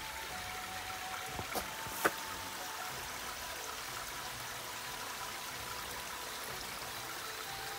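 Small mountain stream trickling steadily down a gully, with two sharp clicks about one and a half and two seconds in.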